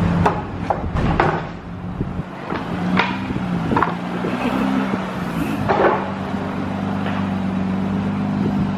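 A car engine running steadily at idle, with a series of sharp knocks and clunks over it, several close together in the first second or so and single ones later.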